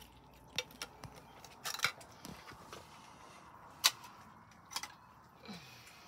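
Several cats eating wet cat food from a plate, with soft chewing and smacking and scattered sharp clicks and clinks of a metal spoon and food can. The loudest clink comes a little before four seconds in.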